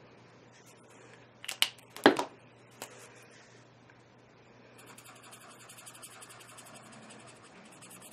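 A few sharp clicks about one and a half to three seconds in, then a Prismacolor alcohol marker rubbing on coloring-book paper in quick, short, repeated strokes.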